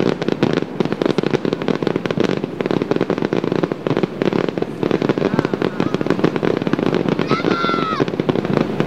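Fireworks display: a dense, unbroken run of bangs and crackles, with a brief high-pitched tone about seven seconds in.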